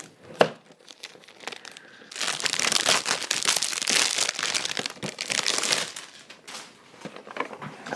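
Clear plastic bag crinkling as it is handled and pulled out of a cardboard action-figure box, densest for about four seconds in the middle and lighter rustling near the end. A single sharp tap about half a second in.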